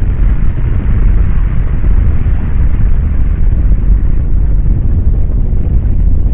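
Snow avalanche rushing down a slope: a loud, steady, low rumbling roar with wind buffeting the microphone.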